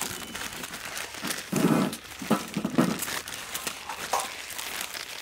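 Plastic instant-noodle packets crinkling and rustling as they are torn open and handled, with many small crackles. A few short, louder low sounds come between about one and a half and three seconds in.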